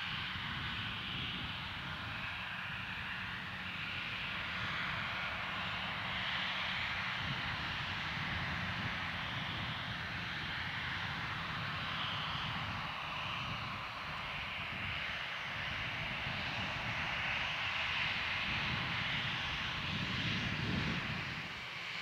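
Airbus A319 jet engines running steadily at low power as the airliner taxis back along the runway: a continuous hiss and whine over an uneven low rumble, swelling a little near the end.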